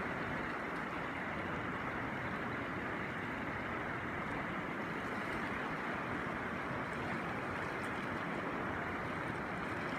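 River water rushing steadily, an even unbroken hiss.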